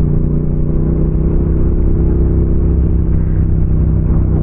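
Motorcycle engine running at steady revs, close to the bike-mounted microphone, with no change in pitch.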